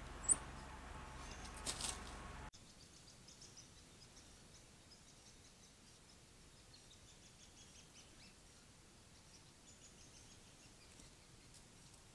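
Quiet forest ambience with faint songbird calls: runs of short, high notes, some stepping down in pitch. In the first two and a half seconds a steady hiss carries one sharp chirp near the start and a few clicks, then the hiss drops away abruptly.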